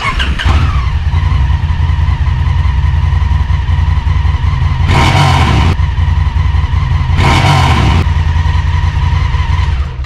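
Honda Africa Twin Adventure Sports motorcycle's 998 cc parallel-twin engine running loudly through its exhaust. The revs fall right at the start, settle to a steady run, and the throttle is blipped twice, about five and seven and a half seconds in.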